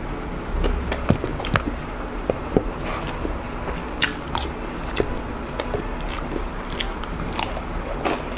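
Close-miked mouth sounds of eating crispy fried chicken and rice: chewing with irregular crisp crackles and clicks.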